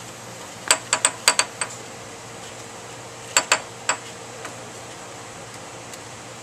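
Sharp light clicks and tinks from handling a foil-capped glass flask: about six in quick succession, then three more a couple of seconds later. A steady low hum runs underneath.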